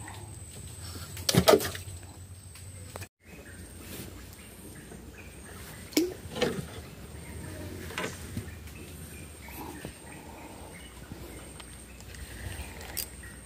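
Quiet outdoor background hiss with a few short knocks and clicks from fishing tackle being handled in a small boat.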